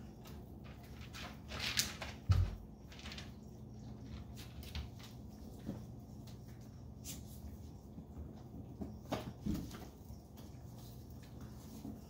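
Chihuahua puppies playing on a tile floor: scattered light clicks and knocks from their scrambling, with dull thumps, the loudest a little over two seconds in and another about nine and a half seconds in. A steady low hum runs underneath.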